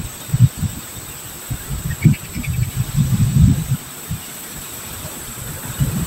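Irregular low rumbling buffeting on the microphone, with a faint quick run of high chirps about two seconds in and a steady thin high whine behind it.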